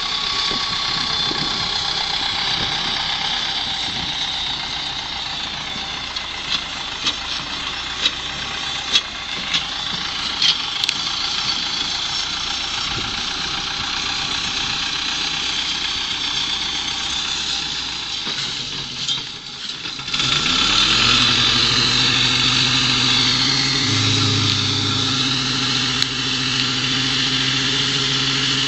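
Ursus 914 tractor's diesel engine running as it pulls a slurry tanker, with a few sharp clicks in the first half. About two-thirds of the way through, a steadier, deeper engine note sets in.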